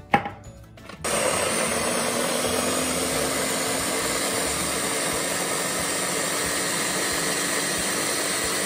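A sharp click, then about a second in an electric mini food chopper starts and runs steadily, its blades grinding onion, garlic, ginger, spices and oil into a smooth marinade paste.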